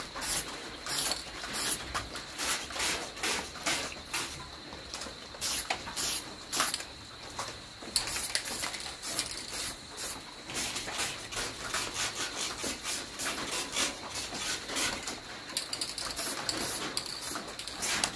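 Aerosol spray-paint can hissing in many short, irregular bursts as paint is dabbed onto the cab's metal.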